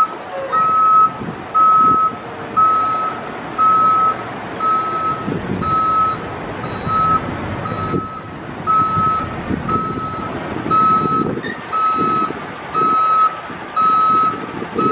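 Backup alarm on a 2007 Ford F-750 water truck beeping steadily on one tone, a little more than once a second, as the truck reverses, over the low rumble of its Cummins 5.9L diesel engine.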